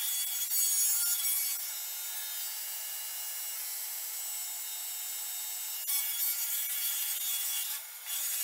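Table saw ripping a full sheet of 1/2-inch maple veneer plywood, a steady high cutting noise with a brief dip near the end.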